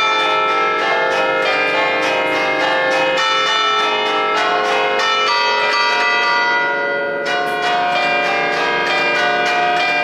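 Ring of ten Cavadini bronze church bells (cast 1950, tuned to B-flat) sounding an allegrezza, a festive melody struck in quick succession and played by hand through an electric system. The notes overlap into a continuous ringing, with a brief thinning of the strikes just before seven seconds in.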